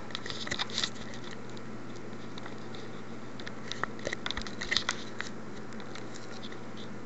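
Steady faint hiss and low hum of a desktop recording microphone, with scattered small clicks and crackles in a cluster during the first second and another around the middle.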